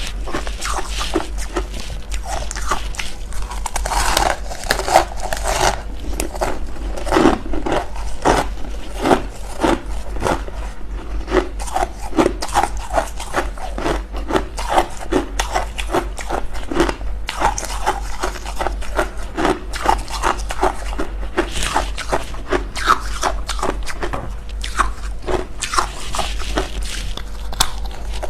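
Freezer frost being scraped and bitten: a steady stream of crisp crunches and scrapes, a few each second.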